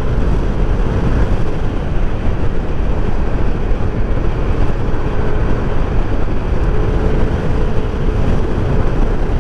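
Wind rushing over the microphone mixed with the steady running of a Yamaha NMAX 155 scooter's single-cylinder engine, cruising at about 70 km/h. A faint steady whine sits under the rumble.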